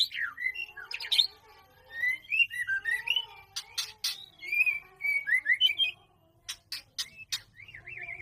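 White-rumped shama singing: varied whistled phrases that rise and fall in pitch, interspersed with sharp clicks, with a short lull about six seconds in.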